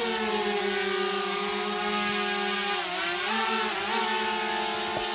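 DJI Mavic Mini quadcopter drone flying, its motors and propellers making a steady whine; the pitch drops and comes back up twice about three to four seconds in as the motor speed changes.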